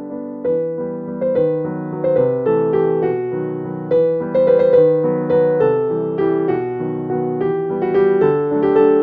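Background keyboard music: a steady, even run of notes.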